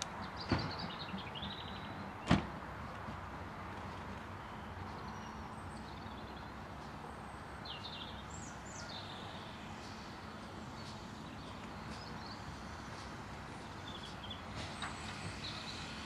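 GWR 4575 Class 2-6-2T tank engine 5542 drifting slowly closer, a faint steady sound under birdsong. Two sharp knocks come about half a second and two seconds in.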